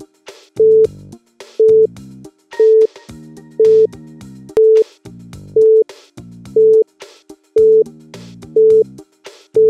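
A quiz countdown timer beeping: a short, bright electronic beep about once a second, ten times in all, over pulsing electronic background music.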